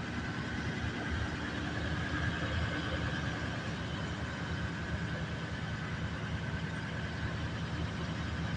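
A vehicle engine idling steadily, a continuous low hum with a faint high whine over it in the first few seconds.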